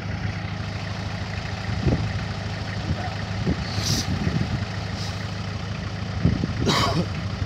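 Land Rover Defender engine running steadily at low revs as the vehicle crawls slowly, with a few short knocks and two brief hisses partway through.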